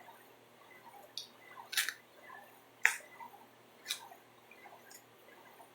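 Mouth sounds of someone chewing pizza: four sharp clicks roughly a second apart, the loudest near the middle.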